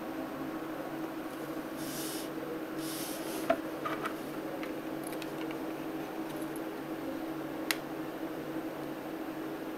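Steady low hum, with brief rustles and a few sharp clicks as a small acrylic photo frame is picked up and handled; the loudest click comes about three and a half seconds in and another near the end.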